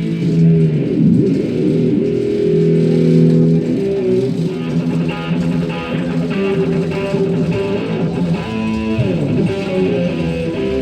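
Loud music with guitar and bass played through a large outdoor sound system, with sustained notes and occasional sliding pitches.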